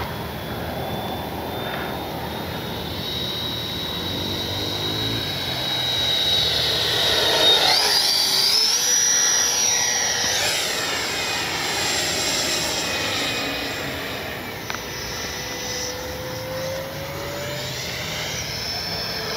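Freewing Mirage 2000 V2 RC jet's 80 mm twelve-blade electric ducted fan whining in flight. The whine climbs in steps about seven seconds in and grows louder with a sweeping sound as the jet passes close. It settles back and climbs again near the end.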